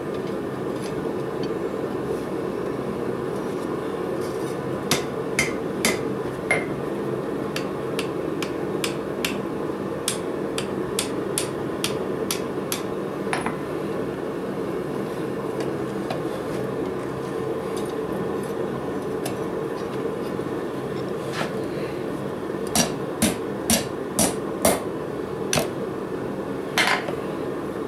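Tekton hand hammer striking 3/8-inch 1018 steel bar on an anvil face while forging a hook, in groups of sharp metallic blows. There are a few blows about five seconds in, a quicker run of lighter taps from about eight to thirteen seconds, and five hard blows near the end. A steady low hum runs underneath.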